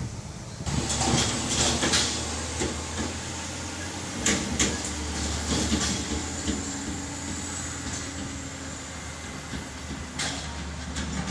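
Diesel engine of a heavy utility truck towing a wood chipper running as it drives off slowly, with a steady low hum that comes up about a second in. Intermittent clanks and rattles come from the rig as it moves.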